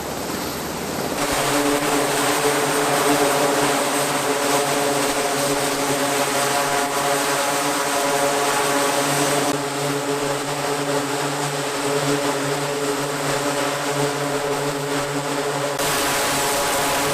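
Steady drone of an aircraft engine, a low hum with overtones over a rushing noise, starting about a second in. Its tone changes abruptly twice.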